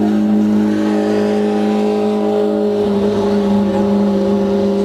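Off-road desert race buggy's engine running at a steady, even pitch, with a slight change in the note about three seconds in.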